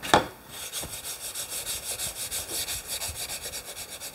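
A sanding sponge rubbed in quick back-and-forth strokes along the underside of a maple gallery rail, cleaning up the tear-out around the post holes so the rail sits flush. A single sharp knock comes right at the start.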